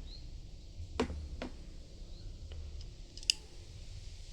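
Small clicks of a crimping tool and an RJ45 plug being handled while the plug is seated in the crimper's die: a few light clicks, then one sharp click a little after three seconds in.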